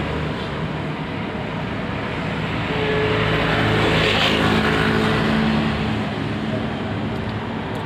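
Road traffic: motor vehicles running past on the road, with a steady engine hum and one vehicle growing louder and fading away about four seconds in.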